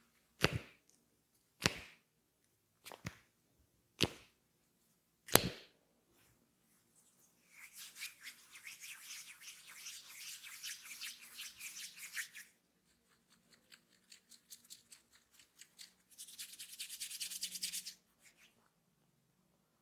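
Five sharp cracks, about a second apart, from a hands-on head massage. Two stretches of fast, dense crackling rubbing follow, like hair being rubbed and pulled between the fingers, with a few light ticks between them.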